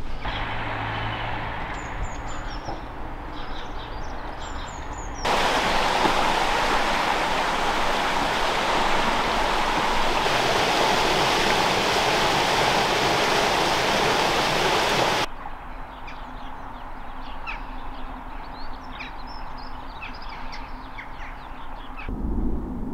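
Outdoor ambience with small birds chirping. It is broken about five seconds in by ten seconds of loud, steady rushing noise that starts and stops abruptly.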